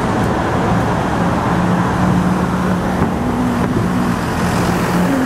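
Road traffic passing close by: a steady mix of car engines and tyre noise, with a low engine hum held under it.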